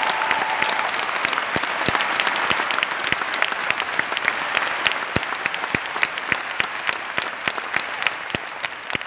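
Concert audience applauding, with distinct single claps close by standing out from the mass of applause; the applause slowly dies down.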